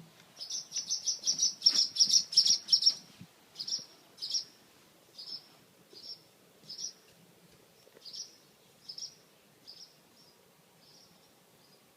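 Small bird chirping: a quick run of high, short chirps for about three seconds, then single chirps that come slower and grow fainter.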